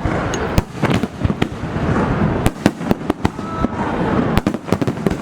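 Aerial fireworks bursting at close range: a rapid, irregular run of sharp bangs and crackles over a continuous rumble of shells going off.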